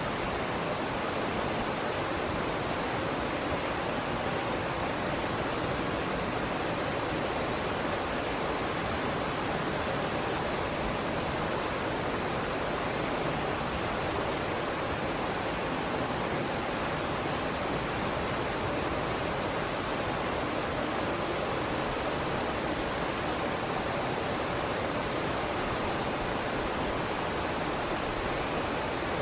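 Steady rush of flowing water with an unbroken high-pitched insect chorus over it.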